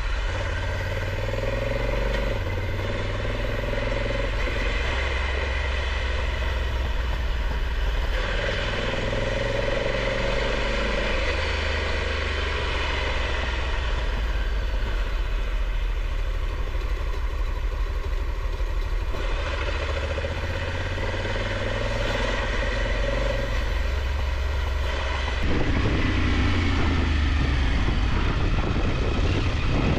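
Motorcycle engine running under way, its note shifting a few times. Near the end it gets louder and climbs in pitch.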